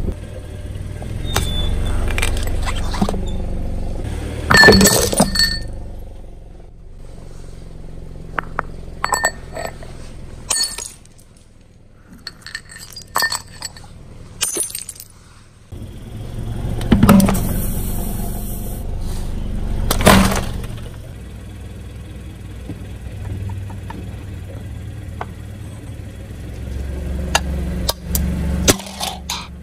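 A car tyre slowly rolling over objects on concrete and crushing them, over the car's low rumble. Plastic blister packs crackle and pop, and ceramic shatters with a clatter of pieces. There are several loud sharp cracks, the loudest about five seconds in and twice more later, with hard plastic cracking near the end.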